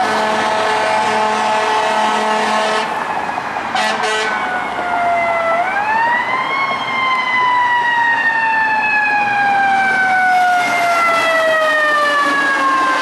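Air horns on a 2017 Pierce Velocity rescue fire truck blaring in a steady chord for about four seconds. Then the truck's siren winds up quickly and slowly winds down in pitch.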